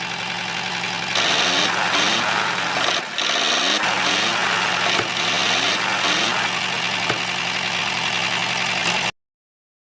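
A small motor running steadily with a hum and a hiss that grows louder about a second in. It cuts off abruptly near the end.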